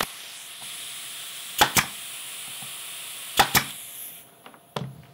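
Pneumatic finish nailer firing twice, each shot a sharp double crack, the two shots nearly two seconds apart, driving finish nails into a small pine bracket. Under them runs a steady air hiss that stops near the end.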